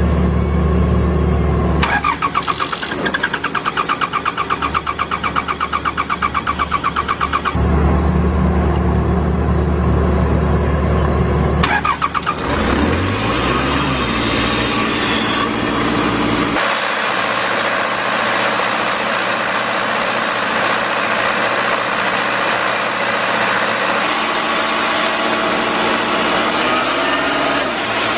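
Kubota diesel engine of a towable air compressor cranked by its starter for about five seconds without catching, then cranked again about twelve seconds in. It fires, rises in speed and settles into a steady run, and its sound changes about seventeen seconds in. A steady low hum is heard before and between the two cranking attempts.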